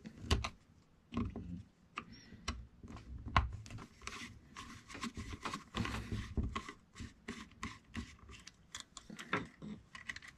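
Flat-blade screwdriver turning and scraping in the plastic brush cap of a DeWalt DW735 planer motor as the cap is unscrewed, giving many small irregular clicks and rubbing sounds.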